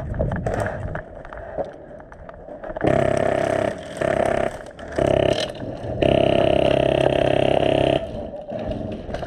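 Airsoft gun firing on full auto: a fast, even buzzing rattle in four bursts, starting about three seconds in, the last one about two seconds long. Before the firing there are a few scattered clicks and knocks.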